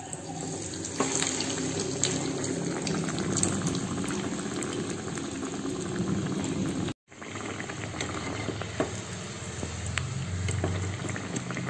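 A breadcrumb-coated chicken cutlet deep-frying in hot oil in a small kadai: steady sizzling and bubbling crackle that picks up about a second in as the cutlet goes into the oil, breaking off briefly about seven seconds in.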